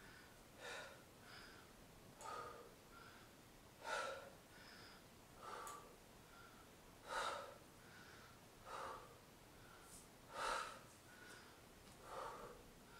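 A woman's faint, rhythmic breathing from exertion during dumbbell single-leg deadlifts: a short, sharp exhale about every second and a half, with quieter breaths in between.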